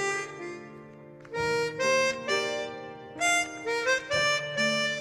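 Chromatic harmonica playing a slow, lyrical melody in short phrases of held notes, with a brief pause about a second in, over quiet band accompaniment.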